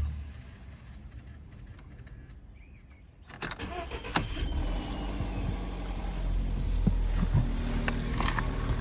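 VW Passat 1.4 TSI turbocharged four-cylinder petrol engine starting about three seconds in and then running, with a few sharp clicks. The noise is from the timing chain, which is making noise.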